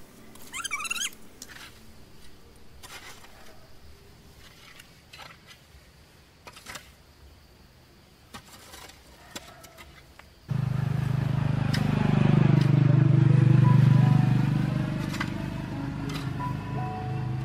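Faint scattered clicks and a short warbling chirp, then about ten seconds in an engine suddenly becomes loud, its pitch dipping and rising again before it settles at a lower level.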